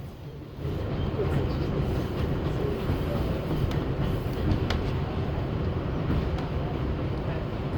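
Inside an R62A subway car running at speed: a steady low rumble of wheels on rail, briefly quieter for the first half second, with a faint steady hum and a few faint clicks.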